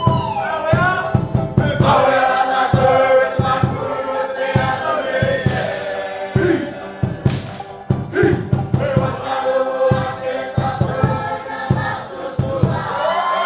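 Background music: a choir of voices singing together over a steady drum beat.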